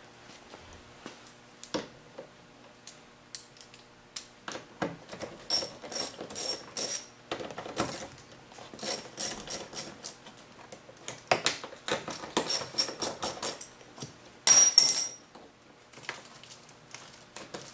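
Hand ratchet with an 8mm socket and extension unscrewing the side-mirror mounting nuts: runs of quick ratchet clicks and small metal clinks. A louder metal clatter comes near the end as something metal is dropped.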